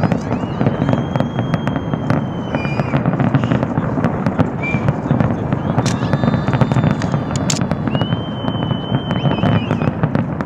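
A large fireworks display firing continuously: a dense, unbroken barrage of cracks and bangs over a steady rumble. Two long, steady high whistles ring out over it, one near the start and one about eight seconds in.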